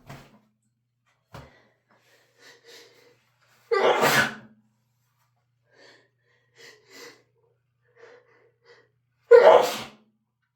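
A person sneezing hard twice, about four seconds in and again about nine seconds in, with short gasping breaths in between. The sneezes are induced by chhinkni sneezing powder on a feather tickling the nose.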